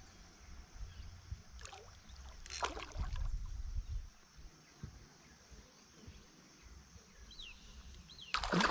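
Water sloshing and splashing around a small kayak while a hooked pacu is fought on a spinning rod. There are brief splashes about two and three seconds in.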